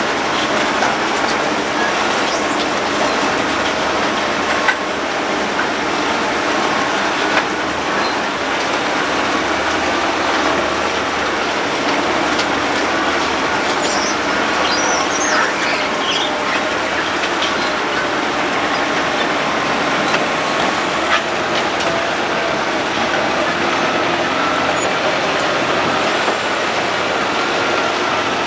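Road planer milling up the road surface: a loud, steady grinding and rattling racket over its engine, with a few sharp knocks.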